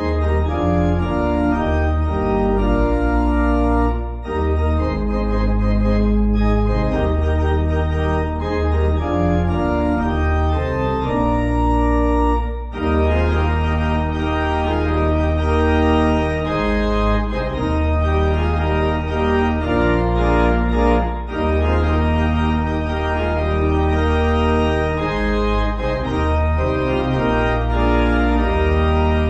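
Organ playing a hymn accompaniment: held chords that change every second or two over a deep sustained bass, with no singing.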